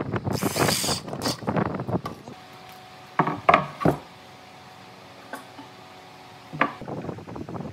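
Workshop handling sounds: wooden pieces and tools knocking and clattering, with a few sharper knocks about three and a half seconds in and another near the end, and a faint steady hum in between.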